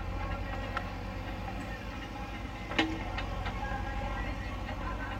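JCB 3DX backhoe loader's diesel engine running steadily while the backhoe works, with a single sharp knock a little under three seconds in.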